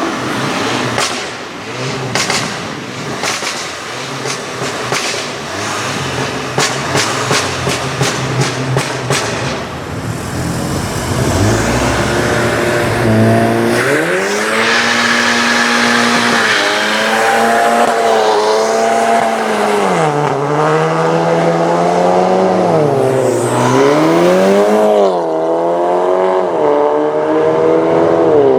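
Modified Volkswagen Golf with an aftermarket exhaust: a quick run of sharp exhaust crackles and pops over a low engine note for about the first nine seconds. Then, from about a third of the way in, the engine revs, its pitch held high and then dropping and climbing again several times.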